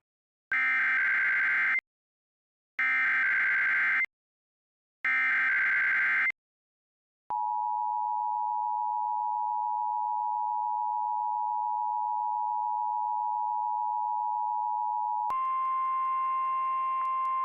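NOAA Weather Radio alert signal: three short bursts of screechy digital SAME header data about a second apart, then a steady alarm tone for about eight seconds. About fifteen seconds in, the tone switches to a harsher, buzzier alarm tone near 1 kHz with clicks in it, which marks a test of the NOAA Weather Radio warning alarm.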